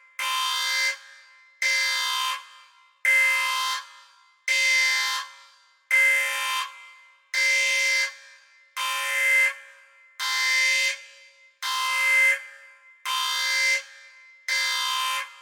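Spaceship alarm sound effect: a buzzy, steady-pitched, horn-like alarm blast about a second long, repeating about every second and a half, eleven times. Each blast swells slightly, then cuts off with a short fading tail.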